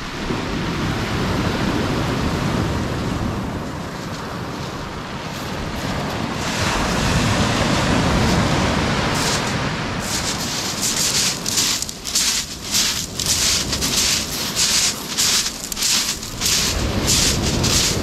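Surf and wind noise along a shingle beach, swelling louder for a couple of seconds around seven seconds in. About ten seconds in, footsteps begin crunching over small white pebbles, about two steps a second.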